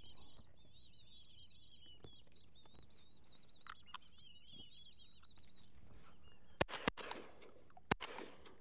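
A flock of black-bellied whistling ducks calling overhead with high, wavering whistles, then three shotgun shots: two close together about six and a half seconds in and a third a second later.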